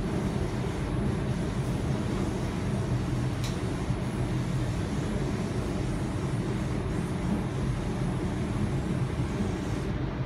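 Steady running noise of a Sydney Trains Tangara electric double-deck train in motion, heard inside the passenger car, mostly low. A faint single click about three and a half seconds in.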